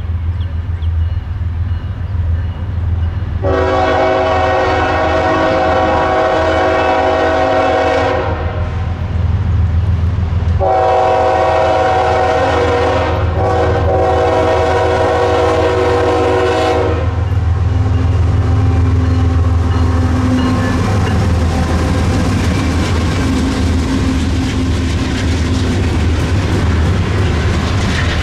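A diesel freight locomotive, a GE ES44AC-H leading a grain train, sounds its horn for a grade crossing in two long blasts. The second blast is briefly broken near its middle, and the low rumble of the diesel engines runs under both. After that the locomotives and cars pass, with steady rail and wheel noise and a clickety-clack of wheels over rail joints.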